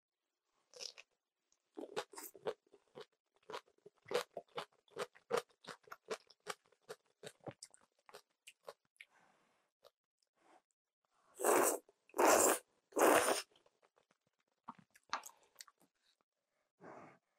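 Chewing crunchy napa cabbage kimchi: a quick run of crisp crunches. About twelve seconds in come three long slurps of kalguksu noodles, the loudest sounds here.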